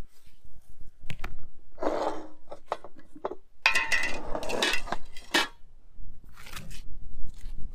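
Kitchenware handled on a stone table: a large aluminium stockpot set down and a glass jar's lid taken off. The handling gives a run of knocks, clinks and scrapes, some with a brief metallic ring.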